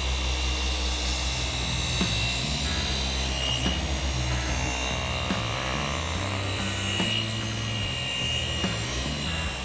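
Background music with a bass line and a steady beat, over the steady whine of a handheld orbital polisher buffing the painted engine cowling of a light aircraft.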